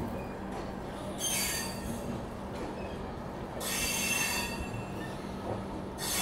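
Passenger train's steel wheels squealing against the rails as it moves slowly out of the station, in three separate squeals about a second long over a steady rolling rumble and hum.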